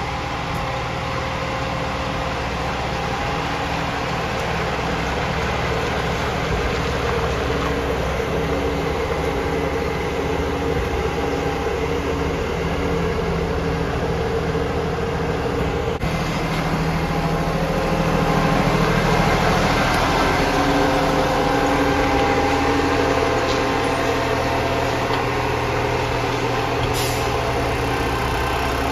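Diesel engine of an IVECO side-loader garbage truck running at low speed as it manoeuvres, growing somewhat louder about two-thirds of the way through as it draws close.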